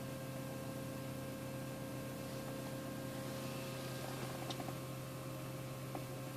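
Opel Astra H electro-hydraulic power steering pump giving a steady hum made of several fixed tones, with a few faint ticks about four and a half seconds in. The pump hums like this when the steering wheel is turned, a fault that replacing its bearings did not cure.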